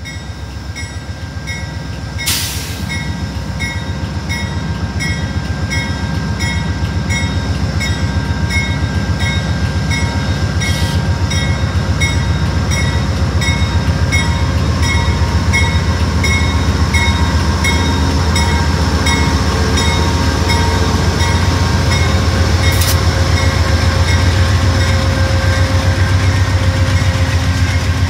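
Amtrak GE P42DC locomotive's bell ringing steadily over its V16 diesel engine running, the engine growing louder as the locomotive passes slowly by.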